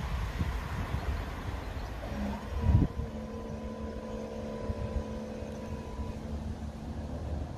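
Level-crossing barriers being raised: a clunk about three seconds in, then a steady mechanical hum with a high whine from the barrier drive for three to four seconds, which stops as the arms reach upright. Wind rumble on the microphone runs underneath.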